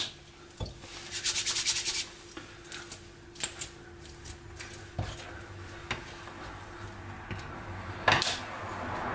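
Hands pressing and folding bread dough on a wooden worktop, with a plastic dough scraper scraping the surface. A quick run of scrapes comes about a second in, then a few light knocks, and a louder scrape near the end.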